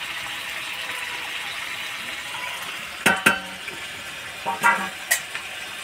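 Curry sizzling steadily in a pan, with steel utensils clinking against it: one sharp ringing clank about three seconds in, then two lighter clinks near the end.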